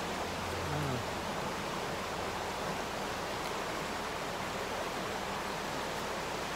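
Rushing river water running over shallow rapids, a steady even wash of noise. A brief low hum sounds about a second in.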